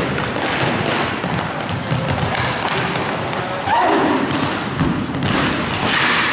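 Roller hockey play in a sports hall: inline skate wheels rolling on the court, with repeated knocks and thuds from sticks, the ball and the boards.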